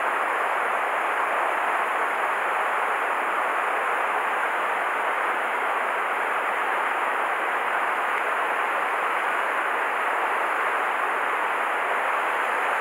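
Steady rushing of a shallow mountain stream flowing over rocks, heard close up.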